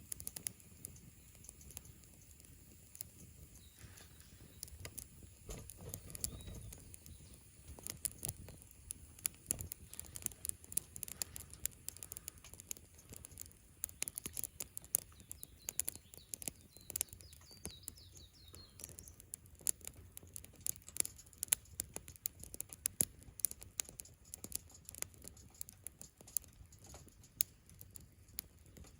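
Wood campfire crackling, with many irregular sharp pops and snaps. Faint bird chirps come through now and then.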